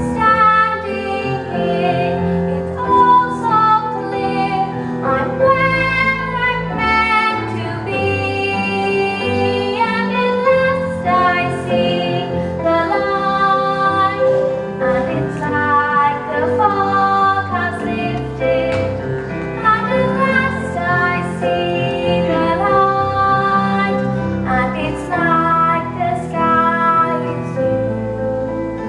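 A young girl singing a solo song with long held notes, amplified through a headset microphone, over instrumental backing music.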